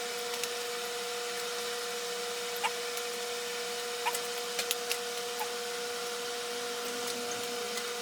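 Steady hiss with a constant hum, and a few faint clicks and rubs of hands working around a motorcycle tire and inner tube.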